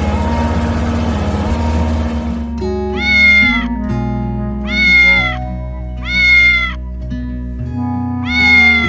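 Four high cat meows, each short and slightly falling at the end, heard over background music.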